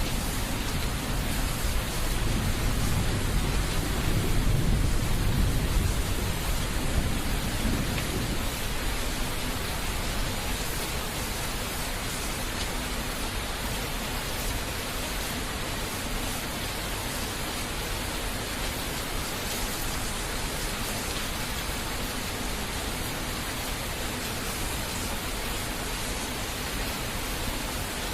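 Thunderstorm: steady heavy rain with a low roll of thunder in the first several seconds that dies away, leaving even rainfall.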